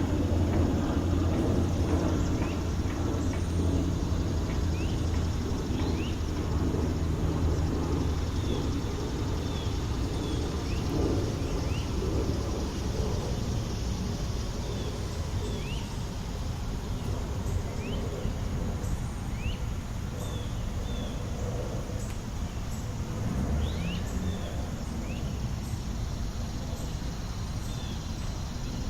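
City park ambience: a low rumble of passing traffic that fades away about eight seconds in, under a steady outdoor hum, with short high bird chirps scattered throughout.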